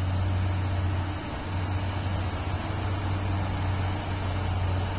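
Vehicle engines idling in a stopped traffic queue: a steady low hum over an even hiss, dipping briefly a little over a second in.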